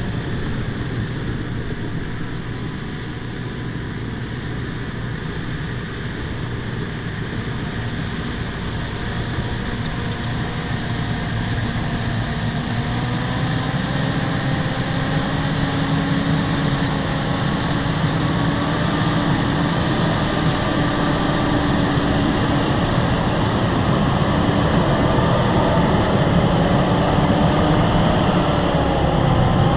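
Bulldozer's diesel engine running steadily under load. Its pitch and loudness rise gradually over the second half.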